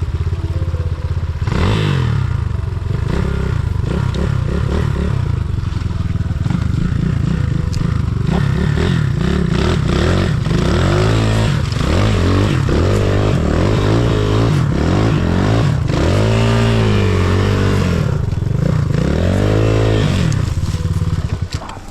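Enduro motorcycle engine running with clatter. From about halfway it is revved hard several times in a row, its pitch climbing and falling with each blip.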